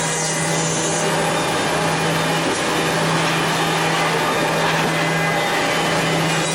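Automatic CNC tenoning machine running: its motors give a steady low hum under a constant, even whirring noise.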